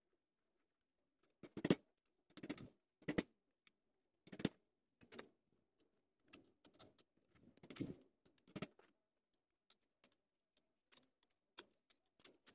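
Irregular sharp metallic taps and clicks, a dozen or so, as the steel E-laminations of a small transformer core are knocked and pried loose with a screwdriver; they thin out near the end.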